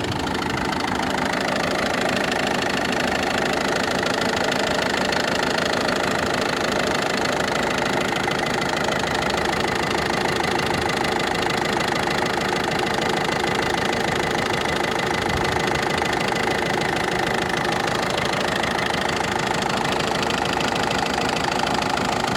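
Ford Focus II 1.6 diesel engine idling steadily with a distinct, rapid, even ticking knock. The knock is new, and the owner does not yet know its cause.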